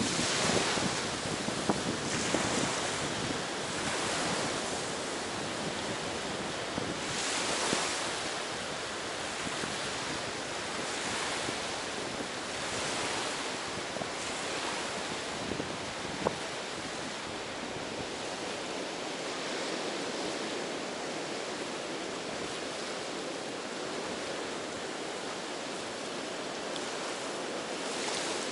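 Ocean surf washing onto a beach: a steady hiss that swells and fades every few seconds, with the strongest surges in the first half. Some wind buffets the microphone at the start, and there is a single sharp tap about halfway through.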